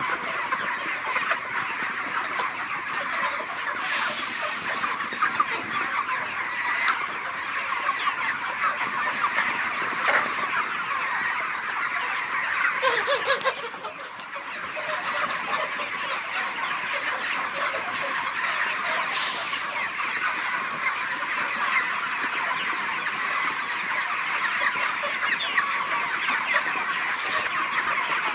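A flock of desi chickens calling all at once, a dense continuous chatter of many overlapping short calls. A few brief knocks come through about 4, 13 and 19 seconds in.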